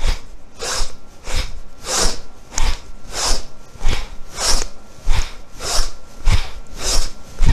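A woman breathing forcefully in and out in a steady rhythm during a pranayama exercise, about one and a half breaths a second, each breath a sharp rush of air.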